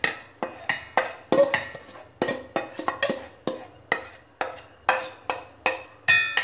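Steel spoon knocking and scraping inside a stainless steel bowl, about three ringing metal clinks a second, as soft boiled raw-mango pulp is scraped out of it. A louder, longer-ringing clang comes near the end.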